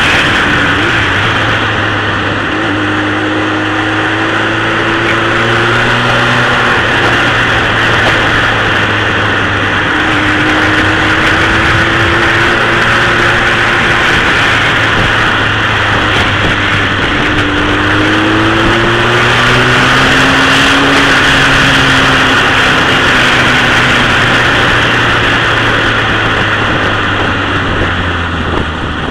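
Honda CBR1000F's inline-four engine running at a road cruise, rising gently in pitch a few times, under a heavy rush of wind over the microphone; near the end the engine eases off.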